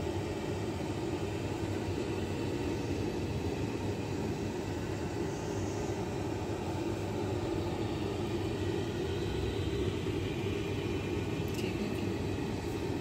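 A steady low rumbling hum with a constant hiss above it, even in level throughout.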